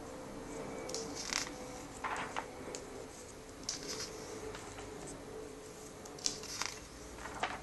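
Paper pages of a comic book turned by hand, a short swish and rustle with each turn, one every second or two, over a faint steady hum.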